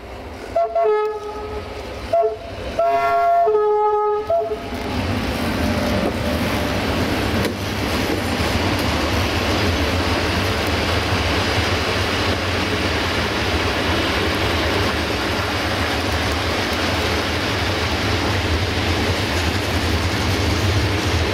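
Electric locomotive's two-tone air horn sounding several blasts in the first four seconds or so, alternating between a higher and a lower note. After that the train's freight hopper wagons roll past close by, a steady rumble of steel wheels on the rails.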